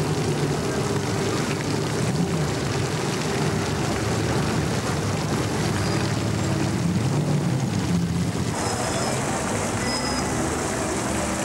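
Honda Gold Wing touring motorcycles passing at low speed with their engines running, over the steady splash of a fountain. Engine pitch rises and falls briefly; after about eight and a half seconds the background shifts to street traffic.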